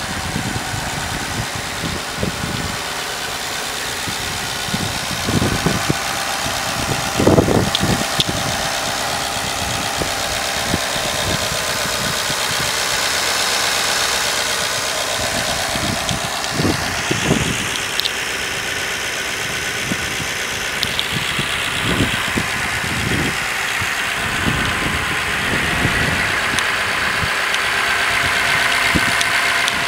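Ford 5.0 L Coyote V8 from a 2017 F-150 idling steadily, heard up close under the open hood, with a few brief low thumps.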